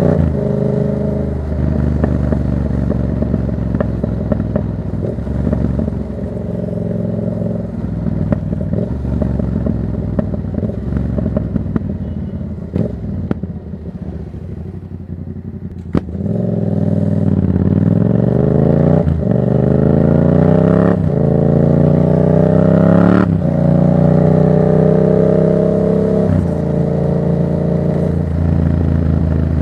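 Yamaha MT-07's parallel-twin engine through a Black Widow exhaust with no dB killer, ridden on the road. For the first half it runs steady and lighter, with a few sharp cracks while off the throttle. About halfway in it accelerates hard through three gears, each shift breaking the rising pitch, then settles to a steady cruise and eases off near the end.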